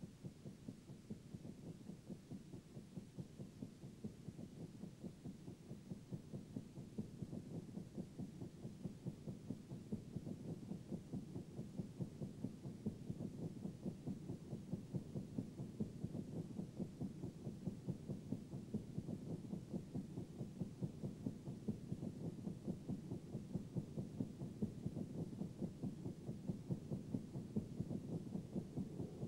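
Low electronic pulse in the soundtrack, a fast even beat like a racing heartbeat, slowly growing louder.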